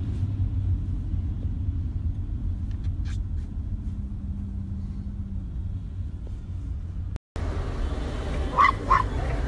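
Steady low road rumble heard from inside a moving car. Near the end, two short, high barks from a small dog, about half a second apart.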